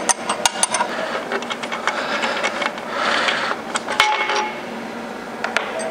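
Metal clicks and scraping from hand tools as the last bolt holding the transmission to the dynamometer's adapter plate is loosened and turned out by hand. About four seconds in comes one sharp metallic clink that rings briefly.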